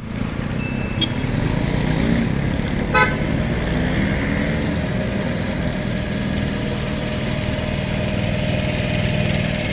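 Road traffic: motorcycle and van engines running close by, with a brief horn toot about three seconds in.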